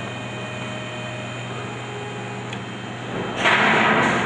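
Small CNC engraving router with its X-axis motors running as the gantry homes to its reference point: a steady hum with thin whining tones that shift and die away. About three and a half seconds in, a louder rushing noise takes over.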